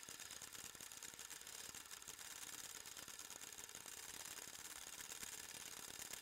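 Faint, steady whir of 8mm home-movie film running through its mechanism: a rapid, even clicking over a soft hiss.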